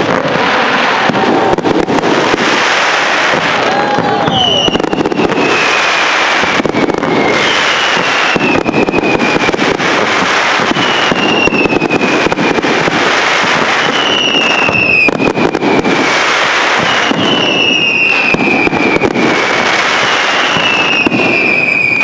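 Fireworks display going off in quick succession: a dense run of shell bursts and crackle. High whistles that fall in pitch sound over it, one every second or two.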